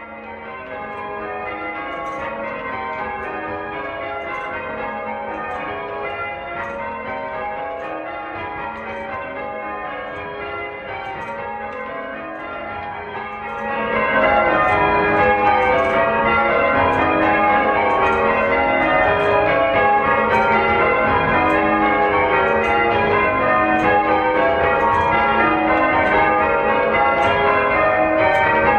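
Peal of church tower bells rung in changes, the strokes overlapping in a continuous tumbling sequence. It grows noticeably louder about halfway through.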